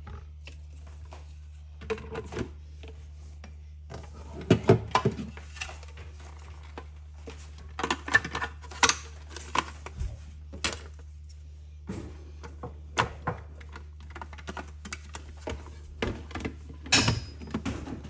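Plastic parts of an ice cream maker handled and fitted together: irregular clicks, knocks and rattles as the bowl, lid, paddle and motor unit are set in place, over a steady low hum.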